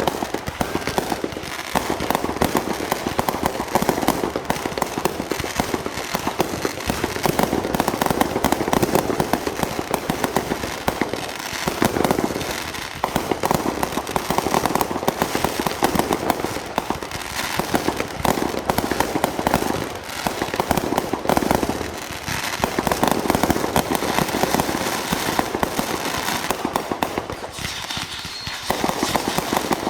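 Fireworks going off in a continuous rapid crackle of many small bangs, with brief lulls about twelve, twenty and twenty-eight seconds in.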